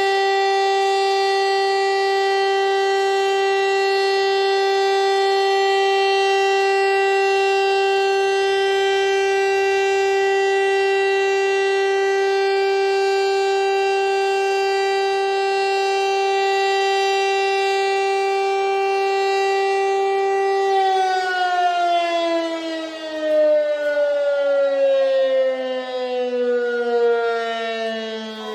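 Civil defense siren sounding a loud, steady tone, then winding down about three-quarters of the way through, its pitch sliding smoothly lower and its loudness wavering.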